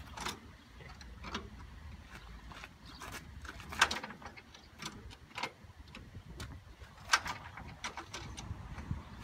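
1930s Fordson tractor engine being hand-cranked on a cold start without firing: irregular clicks and metallic clanks from the starting handle, the two loudest about three seconds apart.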